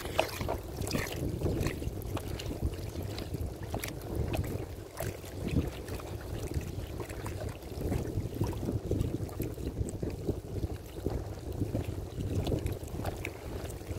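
Shallow canal water sloshing and lapping around a man's body as he works his arm into an underwater crab burrow in the mud bank, with scattered small clicks and scrapes. Wind rumbles on the microphone.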